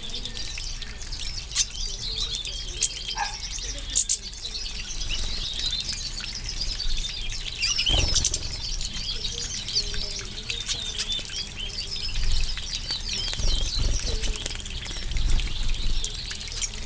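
A flock of goldfinches (major type) chirping and twittering continually, with brief wing flutters and splashes as they bathe in a shallow pool.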